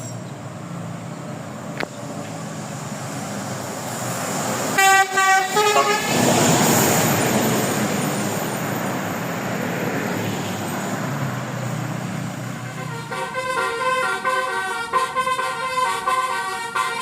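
A tour bus's multi-note telolet horn, of the Basuri musical type, plays a quick run of notes about five seconds in. The bus then passes with a loud rush of engine and road noise. From about thirteen seconds the horn plays a longer tune of short notes.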